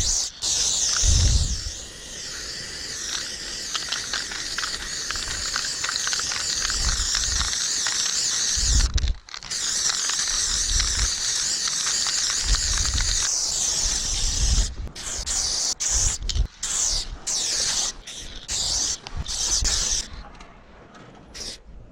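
Aerosol spray paint can spraying in long continuous hisses, with a short break about nine seconds in and shorter spurts with gaps in the last several seconds. Low thumps sound underneath.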